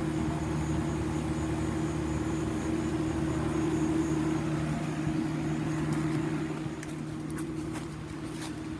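Outdoor heat pump unit running: a steady compressor hum under the rush of its condenser fan, dropping a little in level about two-thirds of the way in.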